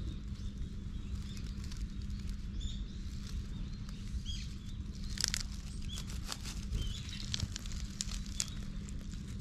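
Dry fallen leaves crackling and rustling as a hand strokes a cat lying on them, busiest in the second half. Faint bird chirps and a low steady rumble run underneath.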